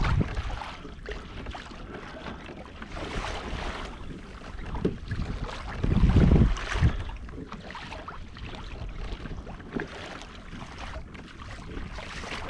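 Wind buffeting the microphone on an open-water kayak, over a steady rush of water and wind noise. The loudest gust comes about six seconds in.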